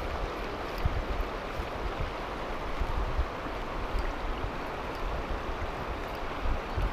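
Steady rush of river water, with irregular low buffets of wind on the microphone.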